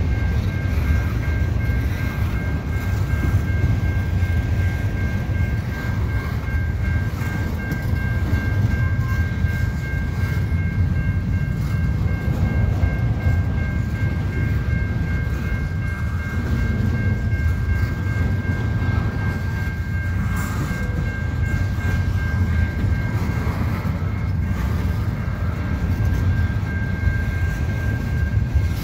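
Double-stack intermodal freight cars rolling slowly over the rails, a steady low rumble. A level-crossing warning bell rings throughout with a steady pulsing high tone.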